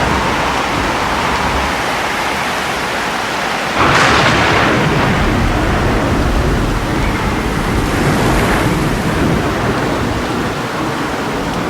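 Thunderstorm: heavy rain falling steadily, with a sudden loud thunderclap about four seconds in that rumbles on for several seconds.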